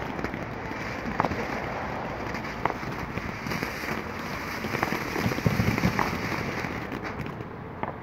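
Ground fountain firework spraying sparks with a steady hissing crackle and a few sharp pops, dying down near the end.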